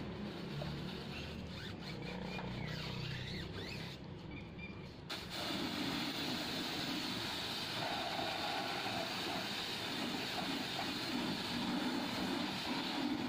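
A hand scrubs a foamy car wheel and tyre, making faint squeaks. About five seconds in, a pressure-washer spray gun cuts in with a steady, loud hiss of water jetting onto the wheel, rinsing off the foam.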